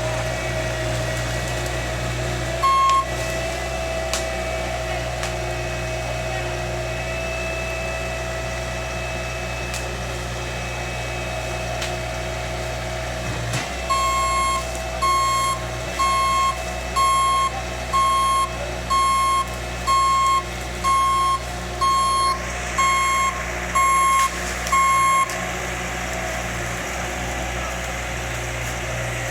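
Heavy machine's diesel engine running steadily, with its reversing alarm giving a single beep about three seconds in, then about a dozen evenly spaced beeps, roughly one a second, through the middle of the stretch as the machine backs up.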